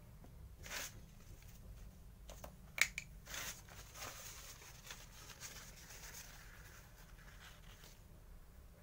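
Faint handling sounds: a few light clicks and taps, the sharpest about three seconds in, then soft rustling of paper towel for several seconds.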